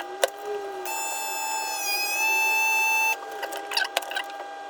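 Vacuum sealer pumping the air out of a bag of meat: a steady high motor whine starts about a second in and stops abruptly about two seconds later, its pitch dipping slightly midway. A sharp click comes just before it.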